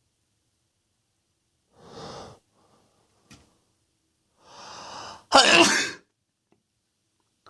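A man's big sneeze: a drawn-in breath lasting most of a second, then one loud, explosive sneeze about five and a half seconds in. A shorter breathy sound comes about two seconds in.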